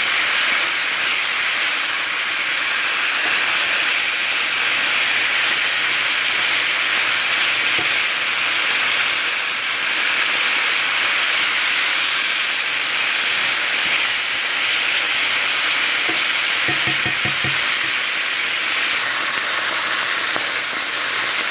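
White beans, cherry tomatoes and green chili frying in a cast iron pan: a steady sizzle, with a wooden spoon stirring through them.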